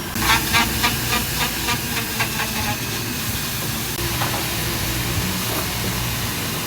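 Jeweler's soldering torch hissing steadily as it heats the ring joint, with a quick run of crackles and pops in the first couple of seconds.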